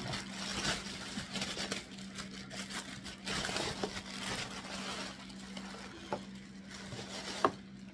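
Clear plastic wrapping crinkling and rustling as a vacuum unit and its corrugated hose are handled and pulled out of it, with a sharp click near the end.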